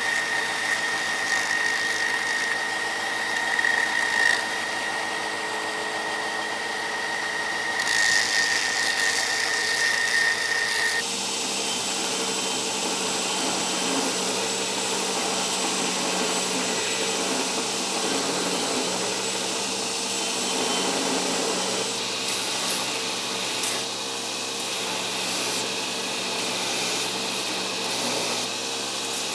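Electric grinder grinding a raised weld bead flush on a steel stake anvil. A steady high whine runs for about eleven seconds, then stops and gives way to a different, steadier grinding noise.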